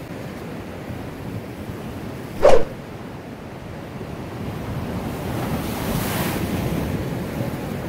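Ocean surf washing over a rocky shoreline, with wind on the microphone; a wave breaks and sprays up over the rocks about six seconds in, swelling the noise. A brief sharp sound, the loudest moment, comes about two and a half seconds in.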